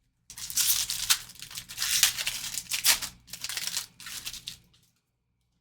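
Foil trading-card pack wrapper being torn open and crinkled by hand, a run of crackling with several louder crackles that stops shortly before the end.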